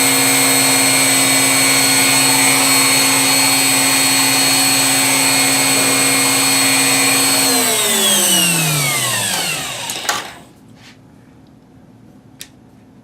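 Bosch router motor running steadily with no bit at a low speed setting, then switched off and spinning down with a falling whine, stopping about ten seconds in. A few faint clicks follow as the switch is worked but the motor does not restart: the on/off switch is failing.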